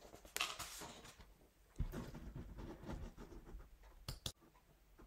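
Quiet pause filled with faint small clicks and rustling, with two sharp clicks in quick succession about four seconds in.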